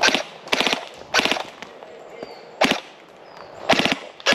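Airsoft rifle firing six short bursts of rapid shots, one of them a single shot, with gaps between the bursts.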